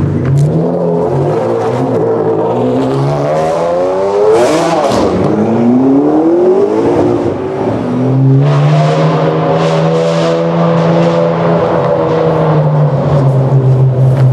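Ferrari Enzo's V12, very loud through a Larini decat and Tubi exhaust, accelerating hard: the pitch climbs, drops at a gear change about five seconds in and climbs again. From about eight seconds in it holds a steady pitch.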